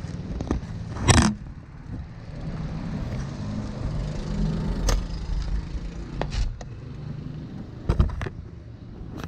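Wind and road rumble on a camera mounted on a moving road bicycle, with a sharp clatter about a second in and a couple of knocks near eight seconds.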